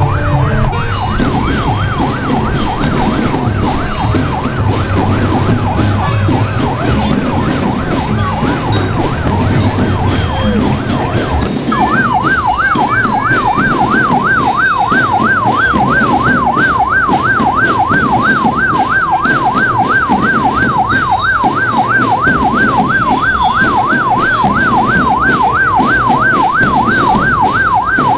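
Siren with a fast rising-and-falling yelp, about three sweeps a second, growing louder about twelve seconds in, over low rumbling street noise.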